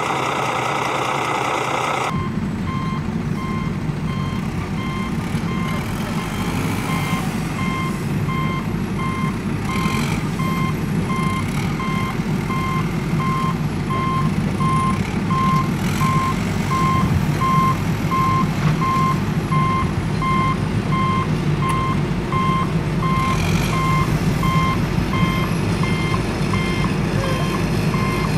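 A truck's reversing alarm sounding a steady series of evenly spaced beeps over a low engine rumble, starting about two seconds in.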